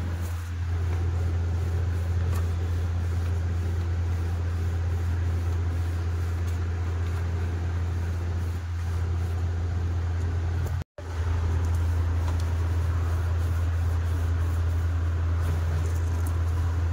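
Steady low machine hum, like a fan or motor running, with a brief break about eleven seconds in.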